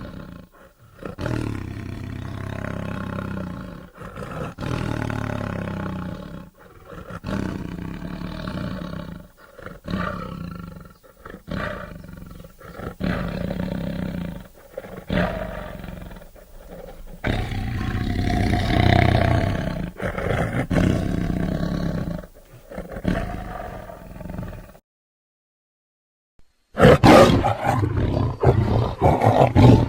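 Tiger sound effects: a string of deep roars and growls, one after another with short pauses. About twenty-five seconds in they break off for two seconds of dead silence, then a louder, harsher roar follows.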